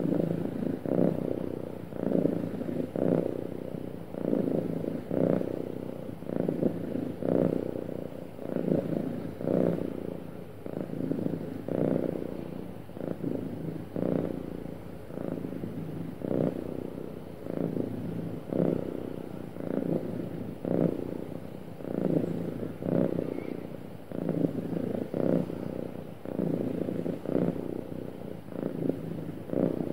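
Domestic cat purring continuously, swelling and fading in a steady rhythm about once a second with its breathing.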